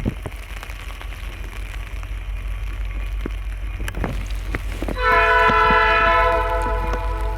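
Diesel freight locomotives approaching with a steady low engine rumble, then an air horn sounding one long chord about five seconds in.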